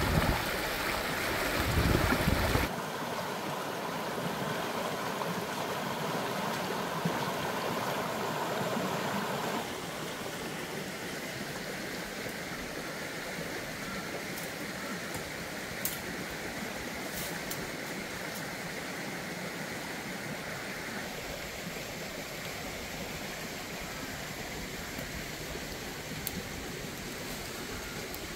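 Steady rush of flowing stream water, louder and fuller for the first few seconds, with a few faint clicks near the middle and near the end.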